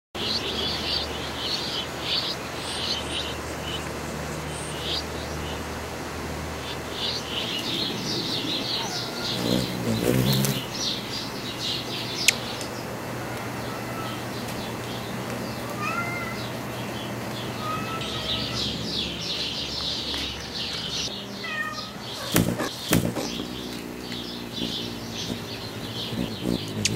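Birds chirping in repeated bursts of high, quick notes, with short whistled calls between them. A cat meows once about ten seconds in, and a few sharp knocks come near the middle and later on.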